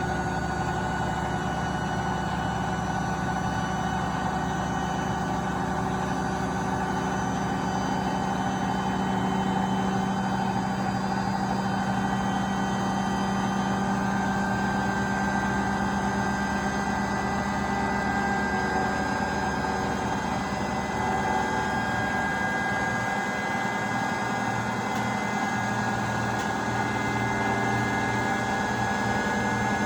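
Beko washing machine on a 1400 rpm spin: a steady motor whine and drum hum, with its tones slowly rising in pitch as the drum speeds up.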